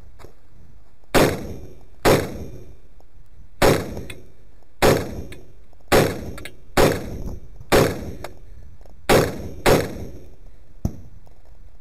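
Shots from a scoped rifle fired at a deliberate pace: nine sharp reports, roughly a second apart, each followed by a brief echo, and a fainter bang near the end.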